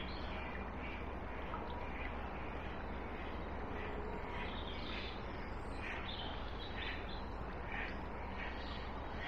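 Birds calling in short repeated notes, more often in the second half, over a steady background of a shallow river flowing.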